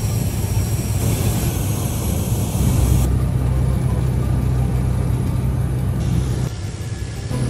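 Engine and propeller of a single-engine commuter plane at takeoff power during the takeoff roll, heard from inside the cabin: a loud, steady drone with a strong low hum. The sound changes abruptly twice, about 3 seconds in and near the end.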